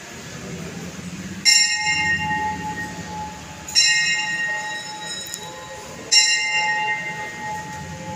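Temple bell struck three times, a little over two seconds apart, each strike ringing out and fading.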